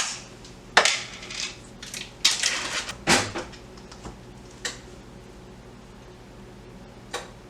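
A kitchen utensil clinking and scraping against a container as cream cheese spread is scooped out: a few short clatters in the first few seconds, then a lull and one more click near the end.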